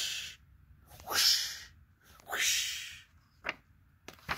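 Three breathy whooshes made with the mouth, imitating a sword swinging, about a second apart; the middle one is loudest. A short click follows near the end.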